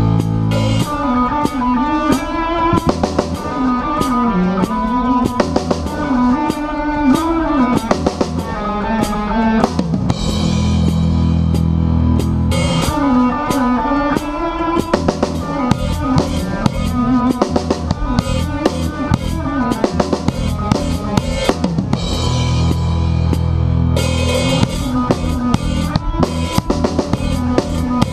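Live rock band playing loudly, heard from on stage: a drum kit keeping a steady beat under electric guitars, with held low chords ringing out for a couple of seconds about ten seconds in and again a little before the end.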